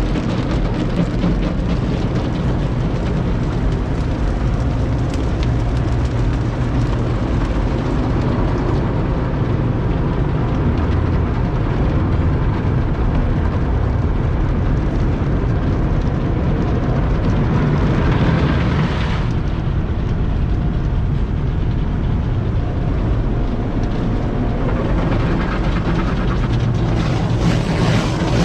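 Steady rumble and rushing noise of an automatic car wash heard from inside the car: water jets and wash machinery working over the vehicle, with a brief louder surge a little past halfway.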